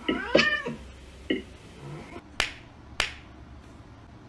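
A cat yowling during a pawing match with another cat: one short call that rises and falls at the start, and a brief call about a second later. Then come two sharp clicks, about half a second apart.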